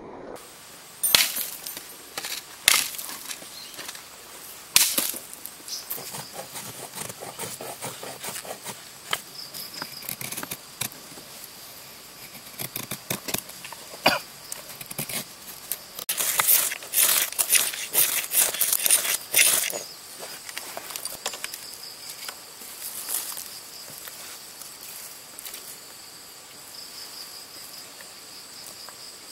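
Knife shaving curls of wood from a branch to make feather sticks: a run of sharp scraping strokes and clicks, thickest about two-thirds of the way in. Insects keep up a steady high buzz behind it.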